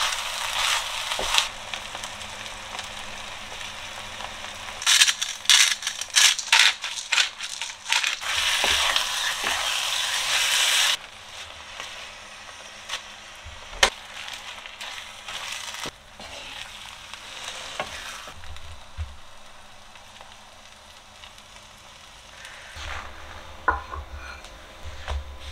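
Food sizzling in a frying pan while a wooden spoon stirs tomato sauce into the ground-meat filling, with repeated scraping strokes against the pan. About eleven seconds in the stirring stops and a quieter sizzle goes on, with a few clicks and knocks.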